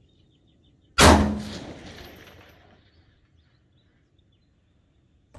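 A single shot from a 5.56 mm M16A2 rifle firing 62-grain M855 ball, about a second in, the report echoing away over about two seconds.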